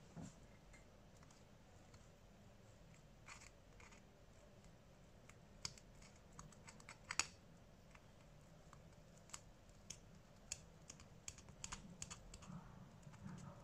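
Faint, scattered small clicks and taps of repair tools and parts being handled on a smartphone during a screen replacement, the sharpest about seven seconds in.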